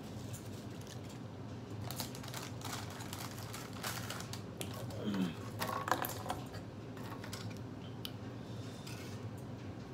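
Short clicks and crinkles of food being handled at a table: a saltine cracker sleeve and crackers being picked over, most of them bunched in the middle few seconds. Under them runs a steady low hum from a room air conditioner.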